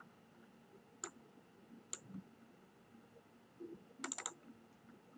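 A few faint computer mouse clicks: single clicks about one and two seconds in, then a quick run of clicks about four seconds in.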